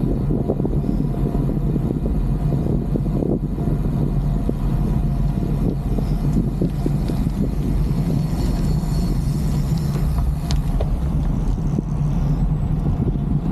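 Steady low rumble of wind buffeting the microphone, mixed with road noise, during a bicycle ride.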